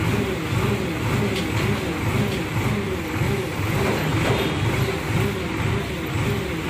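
Hydra crane's diesel engine running steadily while lifting a load, its drone wavering in a regular pulse about three times a second.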